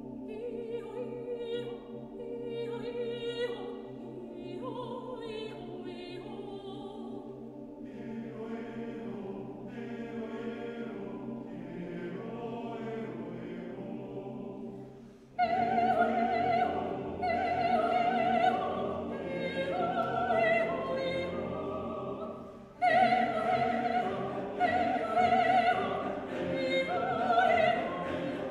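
Men's choir singing, with low notes held as a drone under a moving melody. About halfway through, the sound jumps louder as a soprano's high herding calls come in over the choir, and it jumps again about three-quarters of the way through.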